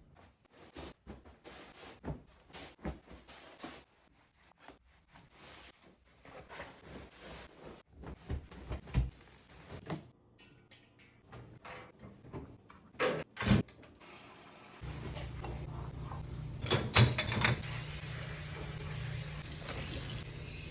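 Household tidying sounds: a series of irregular knocks, clicks and clatters as objects are handled and set down. About two-thirds of the way through, a steady rushing noise starts and carries on, with a few sharp clicks in it soon after.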